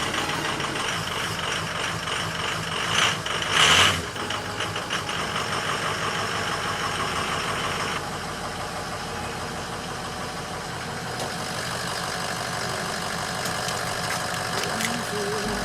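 Troy-Bilt riding mower's engine being turned over by its electric starter without catching, because no spark plug is fitted. It goes on steadily, with short louder bursts about three and four seconds in and a slight drop in level about halfway through.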